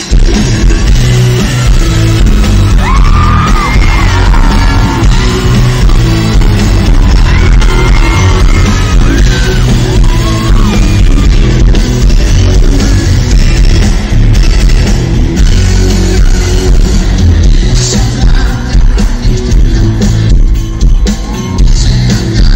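Loud live pop music over a concert sound system, with a heavy, steady bass beat and a voice rising over it between about three and ten seconds in.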